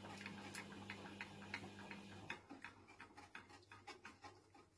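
Faint, irregular clicks of a spoon knocking against a stainless-steel saucepan as a roux with milk is stirred, several a second. A low steady hum underneath cuts out about halfway through.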